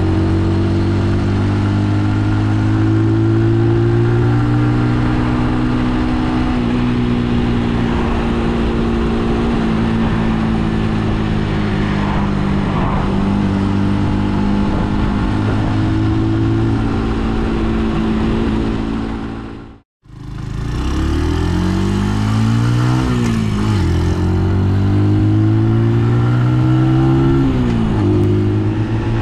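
Brixton Cromwell 125's single-cylinder engine running under way, holding a mostly steady pitch with small rises and dips. About two-thirds through, the sound drops out for a moment. It then rises in pitch and falls off sharply twice, as the bike accelerates through gear changes.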